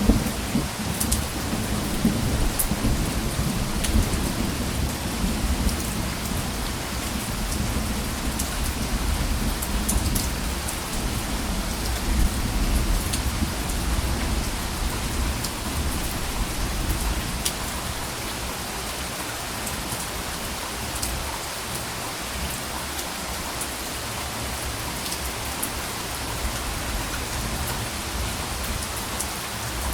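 Steady rain falling, with scattered sharp drop hits. A low, soft rumble of thunder fades away over the first half.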